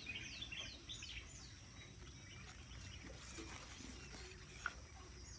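A bird calling with a quick run of short, high, falling notes in the first second or so, over faint outdoor background noise. A single soft tick comes near the end.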